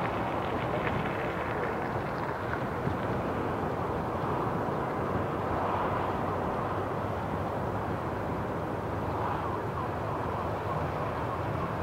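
Steady rushing noise of distant aircraft engines running across an airfield.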